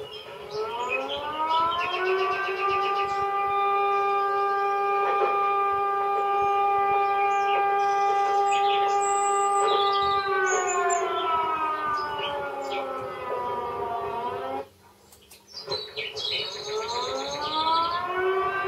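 A siren-like railway sound effect played through loudspeakers. One pitched tone rises over a second or two, holds steady, slowly falls away and cuts off, then rises again near the end, with faint bird chirps above it.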